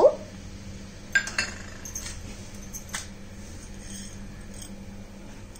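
A few light clinks and taps, about a second in and again three seconds in, as chana dal is tipped from a small glass bowl into a nonstick frying pan and the bowl is handled, over a faint steady low hum.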